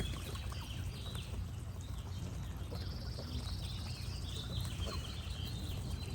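Geese honking among small birds chirping and singing, over a steady low rumble. A high, buzzing trill joins a little under halfway through.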